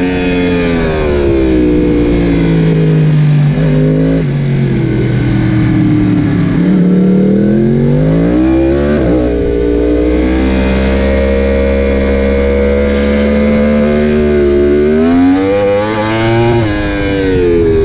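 Yamaha YZF-R1's inline-four engine heard from on board at speed. The revs fall as the bike slows into a first-gear corner, then climb under hard acceleration, with an upshift near the end that briefly drops the pitch. Wind rushes over the microphone throughout.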